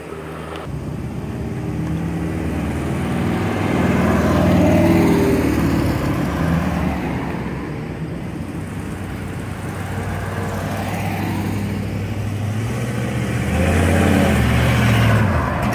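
Classic cars driving past one by one at parade pace, their engines running as each goes by. The sound swells and fades twice, loudest about four seconds in and again near the end.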